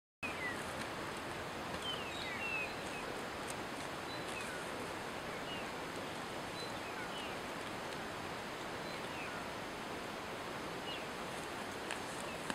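Steady outdoor background noise, an even hiss, with scattered short high chirps sliding up or down. It starts abruptly after a moment of silence and cuts off suddenly near the end.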